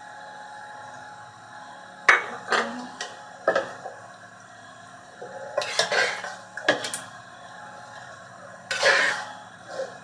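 A spoon knocking and scraping against a metal pot as chicken masala is spooned onto a layer of biryani rice, in a series of separate clinks a second or two apart, over a faint steady hum.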